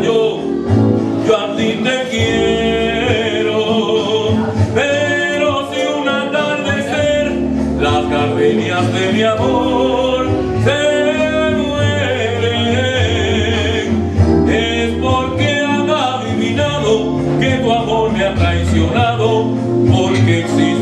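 A man singing in an operatic style, holding long notes with a wavering vibrato, over instrumental accompaniment.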